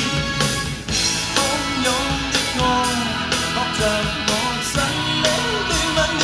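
A song with a singer, guitar and drums playing steadily.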